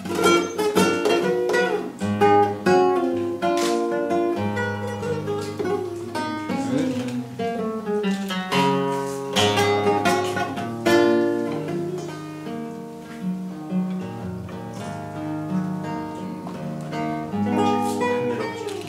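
Solo classical guitar played fingerstyle: a melody of plucked notes over sustained bass notes, continuing without a break.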